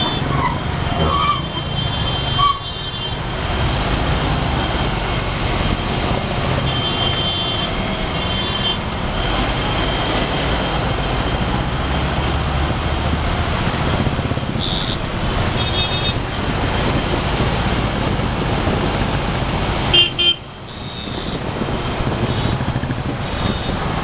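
Volvo B7R city bus diesel engine running steadily at close range in moving traffic, with short high-pitched horn toots from surrounding vehicles sounding again and again. A sharp click and a brief loud burst of noise come about twenty seconds in.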